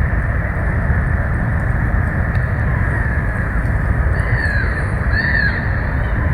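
Steady wind rumble on the microphone, with a few short rising-and-falling bird calls about four and five seconds in.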